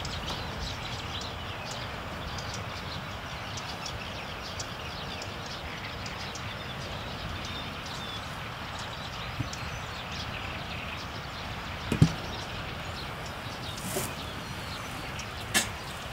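Steady wind noise with faint bird chirps, broken by a few sharp knocks, the loudest a double knock about twelve seconds in.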